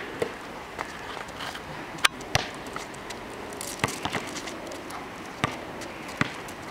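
A basketball being dribbled on an asphalt court: sharp, irregularly spaced bounces, about eight of them, the loudest about two seconds in.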